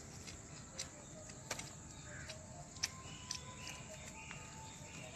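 Faint sounds of a man eating by hand: scattered short clicks and smacks of chewing and handling food, with faint chirping in the background.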